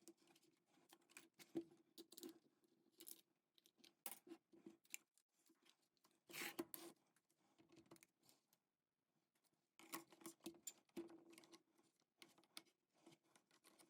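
Faint, scattered clicks, taps and scrapes of IBM Model M keyboard parts being handled and fitted back together, with a brief rasp about six and a half seconds in.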